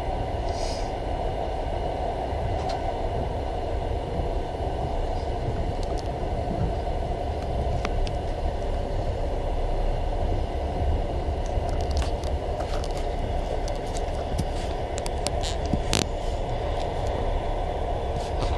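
Passenger train running along the track, heard from inside the carriage: a steady rumble and rattle, with a few sharp clicks along the way.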